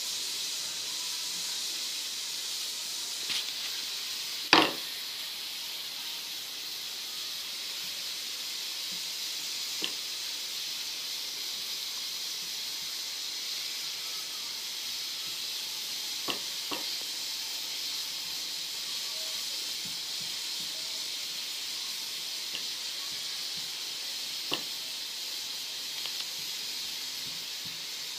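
Steady background hiss, with a few faint clicks and one sharper knock about four and a half seconds in, from kitchen utensils as butter is spread over rolled-out dough.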